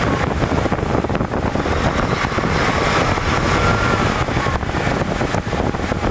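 Diesel engine of a 2005 Volvo VNL semi truck running at raised revs, about 1,500 rpm, heard from inside the cab, easing back down toward idle near the end.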